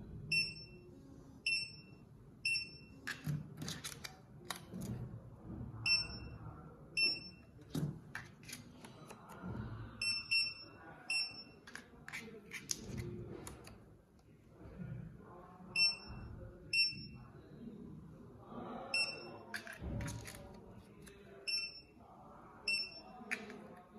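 E200N barcode and QR-code reader giving short, high beeps, mostly in twos and threes, each beep confirming a successful code read. Between the beeps come rustles and knocks as paper code labels are handled.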